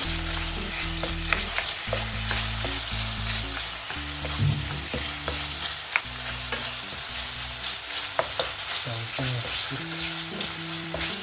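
Chicken pieces frying in hot oil in a pan, a steady sizzle with scattered sharp pops and crackles as the meat browns.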